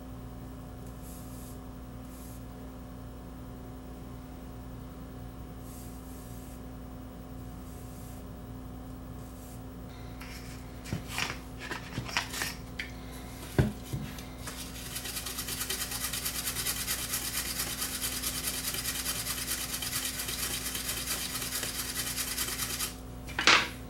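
A toothbrush scrubbing a soldered circuit board wet with isopropyl alcohol: a steady, rapid bristly scratching for about eight seconds, cleaning off flux residue. Before it come a few sharp clicks and knocks as the alcohol bottle is opened and handled, over a steady electrical hum, and one loud swish near the end.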